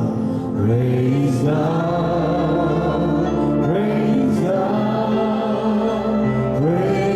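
Slow worship song sung over musical accompaniment, with long held notes that glide from one pitch to the next.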